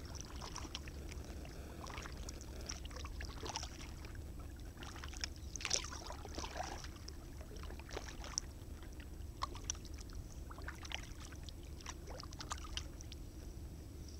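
Kayak paddle strokes in calm water: irregular small splashes and drips from the paddle blade, the strongest about six seconds in, over a steady low rumble.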